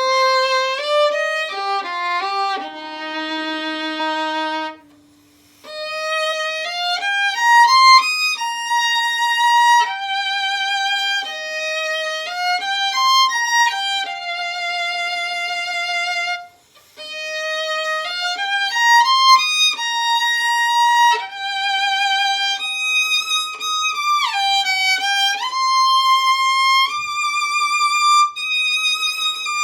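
Solo violin playing the melody of a Japanese winter children's song, sustained notes with vibrato and no accompaniment. The phrases break off briefly about five seconds in and again about sixteen seconds in.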